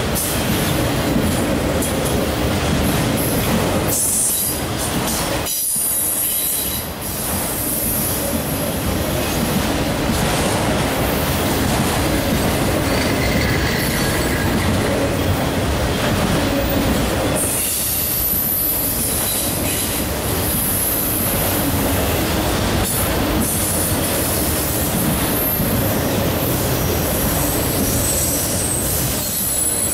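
A long string of autorack freight cars rolling past close by: a steady rumble and rattle of steel wheels on rail, with high-pitched wheel squeal rising a few seconds in and again about halfway through.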